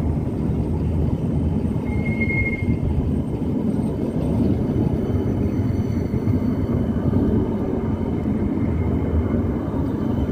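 CAF Urbos tram passing close by at low speed: a steady rolling rumble, with a brief high-pitched squeal about two seconds in.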